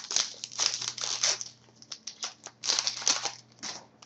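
Foil trading-card pack wrapper crinkling and tearing as it is opened and handled, in a few short bursts, with cards rustling as they are flipped.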